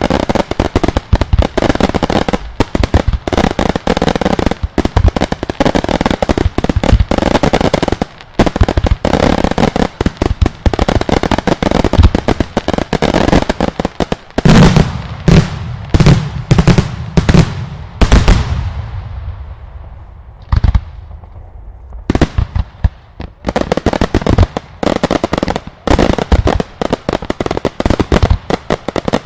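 Loud daylight fireworks: a long, dense run of rapid cracks and bangs, then about six heavy separate booms around the middle, a short lull with a single bang, and dense rapid cracking again near the end.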